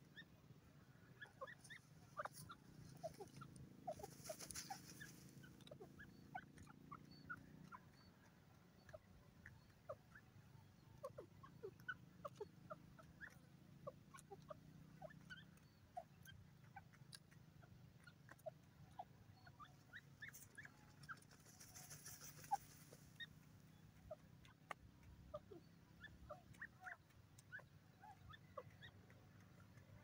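Grey francolin giving faint, short peeping notes, several a second and scattered irregularly, over a faint low rumble.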